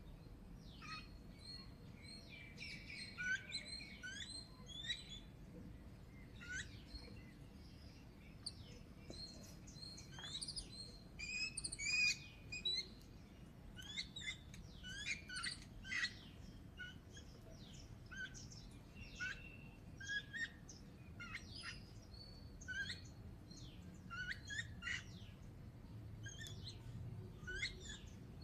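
Babblers calling in a group: many short, sharp chirps and squeaky calls in quick, uneven succession, with the loudest calls about twelve seconds in.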